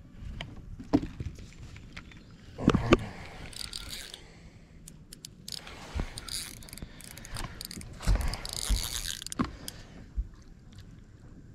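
Spinning fishing reel being cranked in against a hooked fish, its gears and handle giving an irregular clicking, ratcheting rasp, with a few louder knocks of handling along the way.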